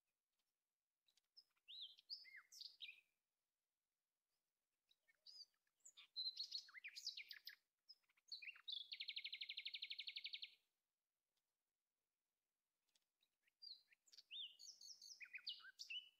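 A songbird singing in three bursts of quick chirps and whistles, with a fast, even trill lasting about two seconds in the middle burst.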